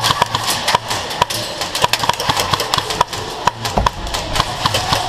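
Airsoft guns firing during a skirmish: a rapid, irregular string of sharp cracks, several shots a second from more than one gun.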